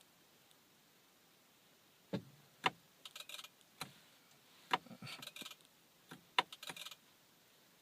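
Quiet at first. About two seconds in comes a series of sharp clicks, about six of them, with short runs of light rattling between them, like small hard objects handled.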